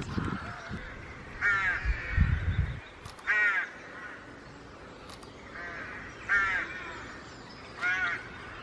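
A crow cawing, about five harsh calls a second or two apart, with a brief low rumble about two seconds in.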